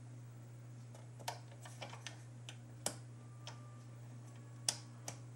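Irregular sharp clicks of a selector switch or control being worked, about a dozen spread unevenly over five seconds, as the test pattern on a tube television is changed. They sit over a steady low hum.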